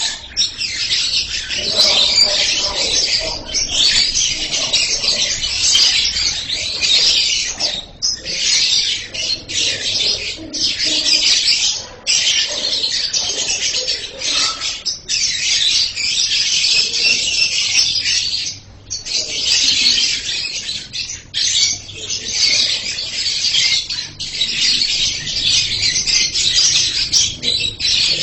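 Lovebird singing loudly in long, shrill, high-pitched chattering trills of a few seconds each, broken by short pauses.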